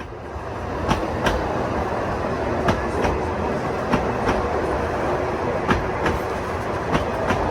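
The Sóller railway's old wooden train running along the track: a steady rumble with sharp clicks, mostly in pairs about every second or so, as the wheels cross the rail joints. The sound rises quickly from silence at the very start.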